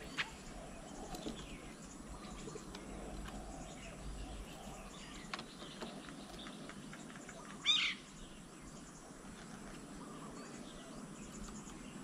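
A bird gives one short, loud call about two-thirds of the way through, over faint scattered bird chirps, with a couple of sharp clicks.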